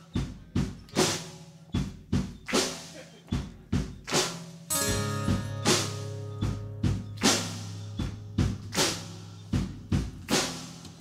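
Live rock band playing: a drum kit beating out a pattern of kick, snare and cymbal crashes, with a held low note from bass and guitar coming in under the drums about halfway through.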